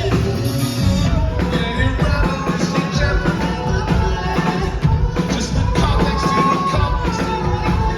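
Indie rock band playing live and loud through a concert PA: pounding drums, heavy bass and guitars, with a singer's voice over the top.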